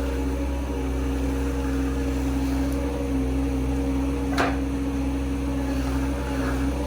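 Skid steer engine running at a steady speed, a constant hum, with one sharp click about four and a half seconds in.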